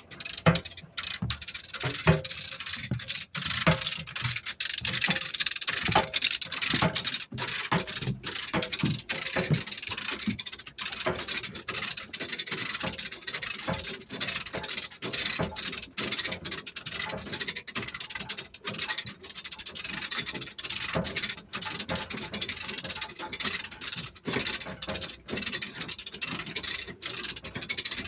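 Two lever chain hoists being ratcheted by hand: rapid, irregular ratchet-pawl clicking and chain rattle throughout as they pull a heavy alternator along steel rails.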